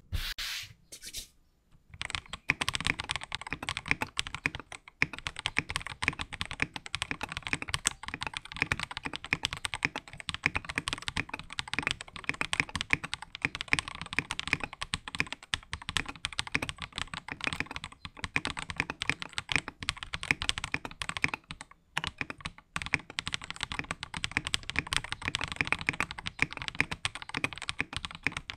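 Typing sound test on a Noir Gear Timeless 82 mechanical keyboard, stock except for Feker Matcha switches: a fast, continuous stream of keystrokes. A few strokes open it, then a short gap, and the typing pauses briefly about 5 and 22 seconds in.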